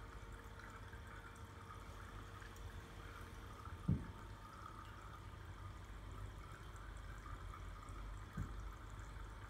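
Faint, steady trickling and splashing of water circulating in a reef aquarium, over a low hum. Two soft low thumps come about four and eight and a half seconds in.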